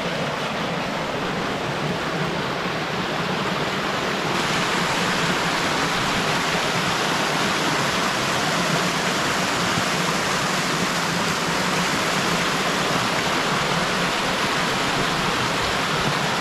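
Small waterfall on a rocky stream: water rushing steadily over the rocks, a little louder about four seconds in.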